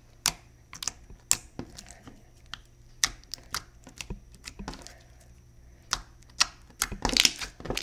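Clear-based glitter slime being worked by hand, making irregular sharp clicking noises, with a quick run of clicks near the end.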